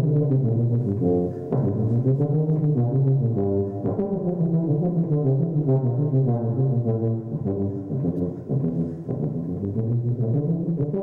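Background music in which brass instruments play a melody.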